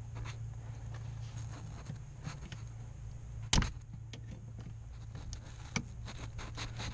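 Light clicks and taps of a hand tool on metal under a car's dash as it works at the retaining clip where the brake pedal joins the brake booster pushrod, with one sharp click about three and a half seconds in and a run of small clicks near the end, over a steady low hum.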